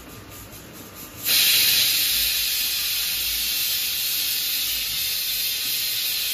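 A pressure cooker's whistle letting off steam in a loud, steady hiss that starts suddenly about a second in: the cooker has come up to pressure.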